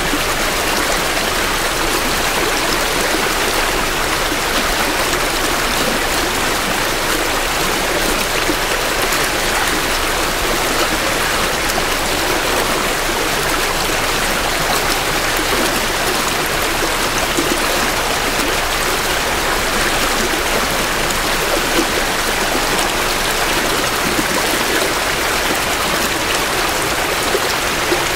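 Creek water flowing steadily over rocks in spring runoff, a continuous rushing and babbling, picked up close to the water's edge.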